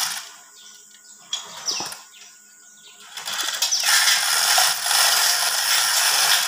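Manual chain hoist being worked by hand: the hand chain rattles and clinks through the hoist in two short pulls, then runs on continuously from about three seconds in as it is pulled hand over hand.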